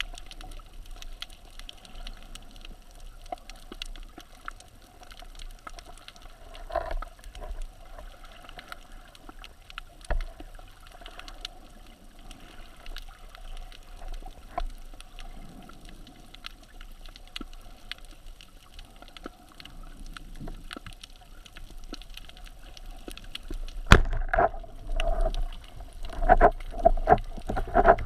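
Underwater ambience through a GoPro HERO4 Black's waterproof housing during a dive: a low, steady water hiss with scattered faint clicks. About four seconds from the end, a run of louder gurgling bubble sounds.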